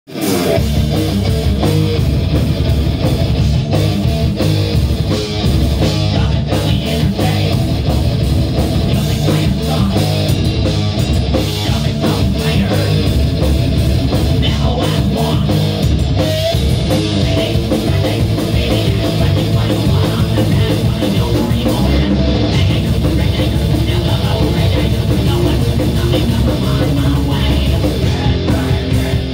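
Heavy metal band playing live: electric guitar, bass guitar and drum kit, loud and continuous.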